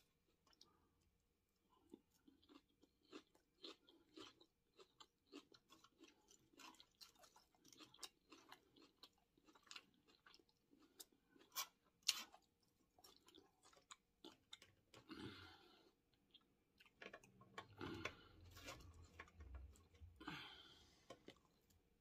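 Faint chewing of Caesar salad, with soft crunches and wet mouth clicks. A couple of sharper clicks come about halfway through.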